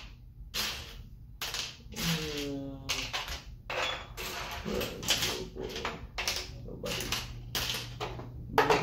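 Plastic Lego bricks clicking and clattering as pieces are handled and snapped together, in quick irregular clicks throughout.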